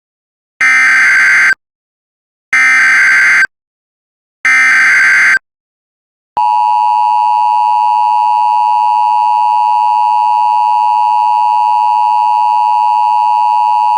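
Emergency Alert System tones: three one-second bursts of SAME header data tones, evenly spaced, then the steady two-tone EAS attention signal from about six seconds in.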